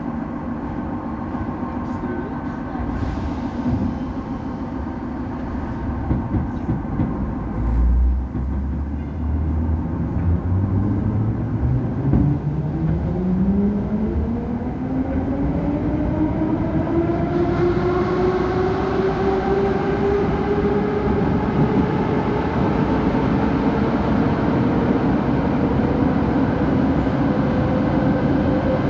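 Soviet 81-717.5A metro car's DC traction motors and gearing whining as the train pulls away, heard from inside the car. There is a heavy thump about eight seconds in as it starts off, then the whine rises steadily in pitch and levels off near full speed.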